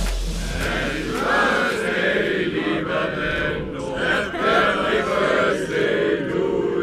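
A group of people singing or chanting together, many voices in unison as a crowd sing-along.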